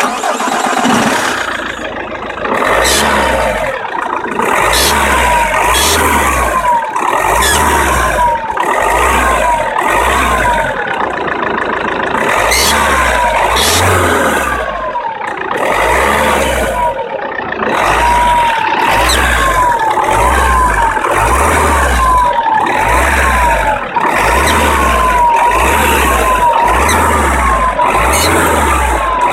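1.9 CDTI diesel engine running from cold with a repeating squeal, a short falling chirp roughly once a second over the engine sound. It is a cold-start squeal whose cause the owner has not identified.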